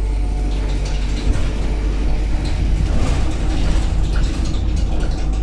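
Dennis Dart single-decker bus heard from inside the saloon: a low engine rumble under a steady clatter of rattling interior fittings and panels, a little louder from about a second in.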